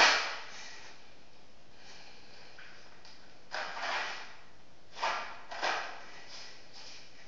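Handmade cardboard toy rifle being handled: a sharp knock right at the start, then cardboard scraping and sliding sounds a few seconds in and twice more about a second later.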